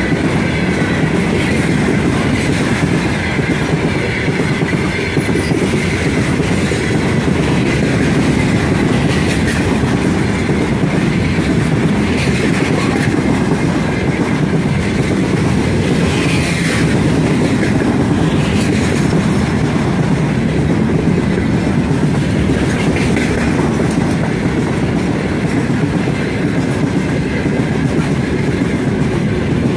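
Heavy freight train of loaded gondola wagons rolling past close by: a steady, loud rumble of wheels on the rails with clickety-clack over the rail joints.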